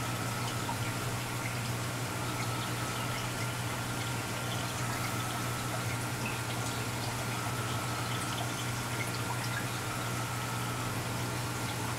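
Reef aquarium water running steadily, trickling and splashing with scattered small drips, over a constant low hum.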